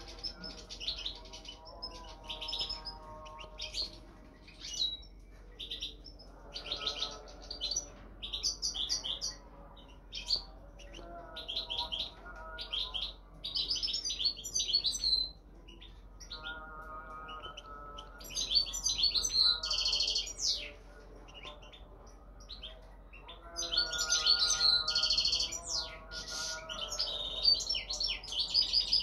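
European goldfinch (parva race) singing: bursts of fast twittering and tinkling phrases, each one to three seconds long with short pauses between. The longest and loudest phrases come in the second half.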